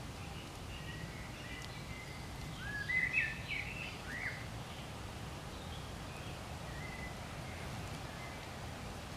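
Birds chirping over steady low outdoor background noise, with a short cluster of chirps about three to four seconds in.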